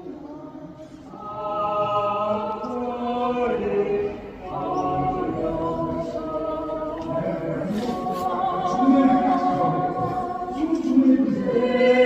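Music of voices singing long held notes with a wavering pitch, with no clear words, growing louder after about a second.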